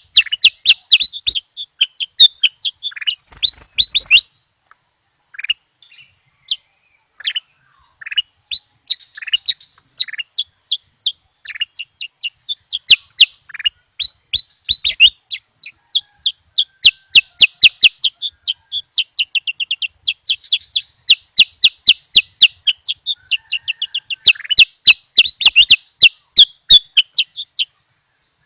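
Bulbul singing energetically: rapid runs of short, sharp chirps, several a second, with a brief lull about four seconds in. A steady high hiss runs underneath.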